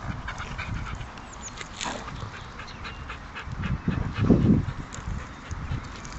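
Dogs playing close by: panting and paws scuffing and clicking on gravelly ground. About four seconds in there is a loud, low rumbling thump.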